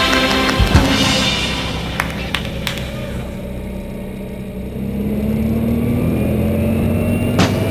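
Music fading out, then a Mini Moke's engine driving on, its pitch rising slowly over the last few seconds as it picks up speed; a few sharp clicks about two seconds in.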